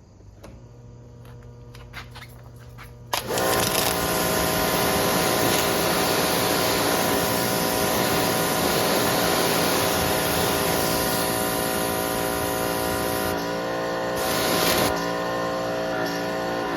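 Electric pressure washer kicking on about three seconds in, then running steadily: motor-driven pump whine with the hiss of the high-pressure water spray.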